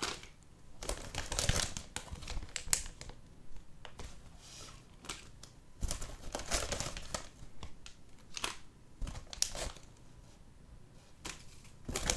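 Plastic packaging bags crinkling and rustling as hands handle them in a box, in irregular bursts with a quieter stretch near the end.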